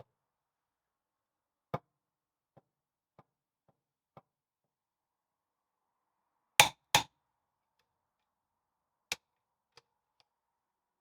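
Scattered light knocks and clicks of hand work on a differential, with two loud, sharp knocks in quick succession about six and a half seconds in.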